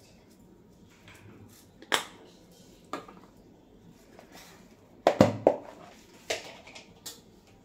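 Plastic spice containers being handled: a few separate sharp clicks and knocks of caps, lids and containers set down on the counter, the loudest cluster about five seconds in.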